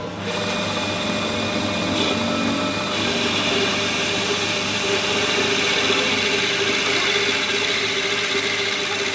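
A power tool running steadily with a continuous whine, growing louder and brighter about three seconds in.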